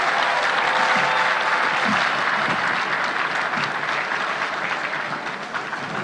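Large crowd applauding, the clapping slowly dying down.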